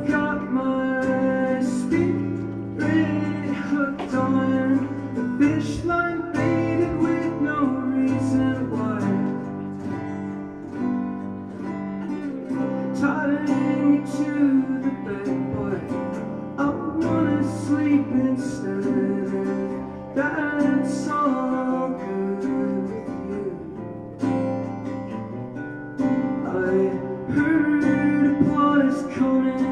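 Acoustic guitar played live in a solo song, with a singing voice at times.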